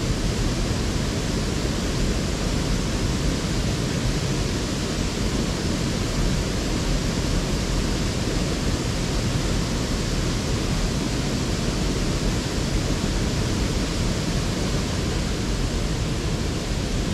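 Steady rush of flowing water, an even unbroken noise.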